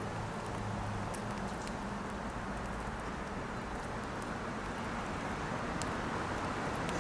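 Steady background noise of distant road traffic, with a few faint, sharp clicks scattered through it.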